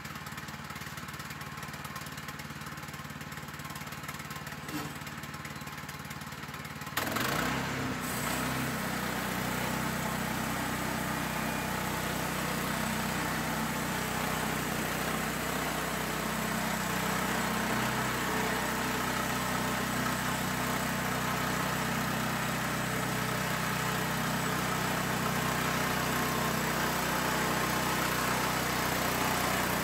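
Portable band sawmill's gas engine running at idle, then about seven seconds in it throttles up and runs steadily at speed under the band blade, much louder, with a dense hiss over the engine hum.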